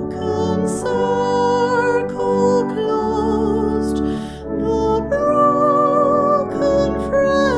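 A slow hymn sung to instrumental accompaniment, with long held notes sung with vibrato.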